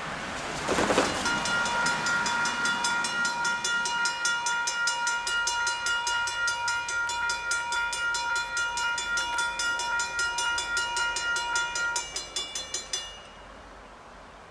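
Railroad grade-crossing warning bell ringing rapidly, about five strokes a second, as the crossing gates come down for an approaching train. It starts about a second in and stops about twelve seconds in, once the gates are down.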